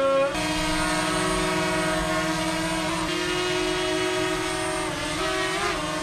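DJI drone's propellers running with a steady multi-toned whine, the pitch dipping slightly about three seconds in and again near five seconds.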